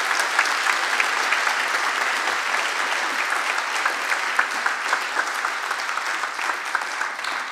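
Audience applause: many hands clapping together, easing off slightly toward the end.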